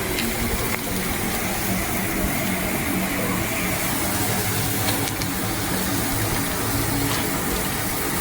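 Chicken sizzling on a hot grill: a steady hiss with a low hum underneath and a few faint pops.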